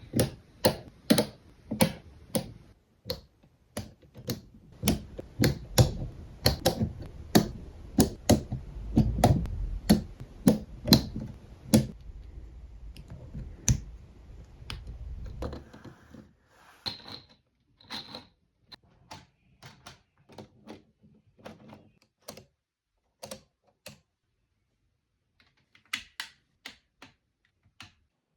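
Plastic Lego Technic parts clicking and clacking in quick, irregular taps, with a low hum under them that stops about halfway through. The clicks then thin out into sparser, quieter taps.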